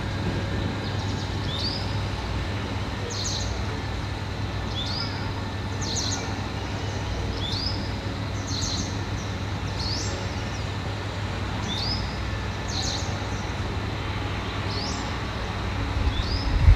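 A bird repeating a short, high two-part call about every second and a half over a steady low rumble. Loud low thumps start near the end.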